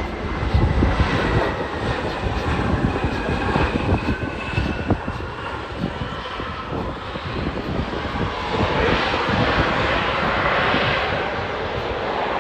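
Airplane's engines passing by: a loud, steady roar with a high whine over it.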